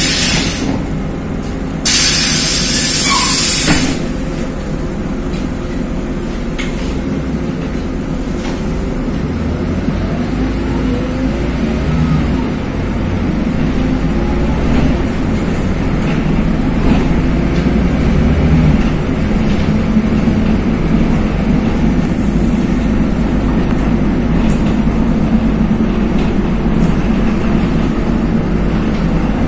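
Interior sound of a LiAZ 5292 city bus driving: a steady low engine and road rumble, swelling for a while in the middle. Two sharp bursts of compressed-air hiss from the bus's pneumatic system come in the first four seconds.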